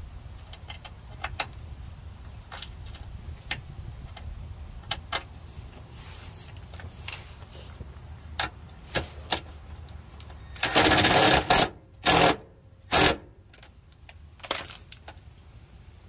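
Small clicks and rattles of hand work on the van's underbody metal, then a cordless power drill runs in three short loud bursts against the frame, the first about a second long and the next two shorter.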